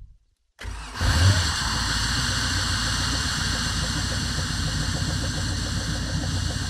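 MerCruiser 350 Mag MPI V8 inboard boat engine heard at its transom exhaust outlets. It comes in suddenly about a second in with a brief rise, then idles steadily with an even low pulse.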